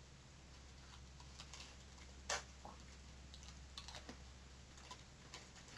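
Faint clicks and taps of a small clear plastic candy carton being handled and opened, with one louder click about two seconds in.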